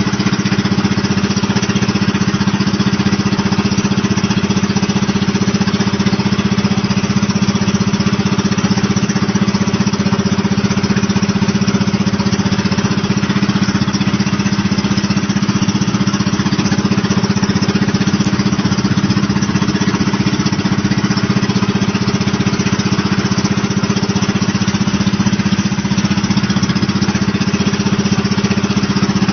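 Engine of a small outrigger boat (bangka) running steadily under way, a constant low drone.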